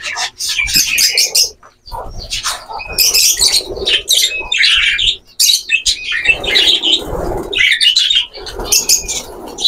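A flock of budgerigars chirping and squawking, many short high calls overlapping, with a flurry of wing flapping about six seconds in.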